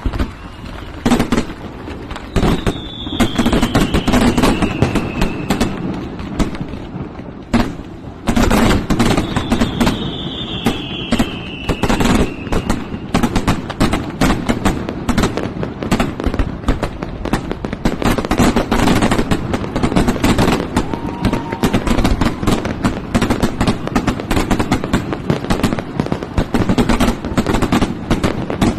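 Fireworks display: a dense, continuous barrage of bangs, booms and crackling. Two long falling whistles sound, one a few seconds in and one about ten seconds in.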